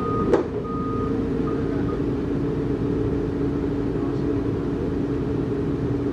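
Heavy diesel machinery engine running steadily, with a reversing alarm beeping twice in the first two seconds and then stopping. A single sharp knock comes about a third of a second in.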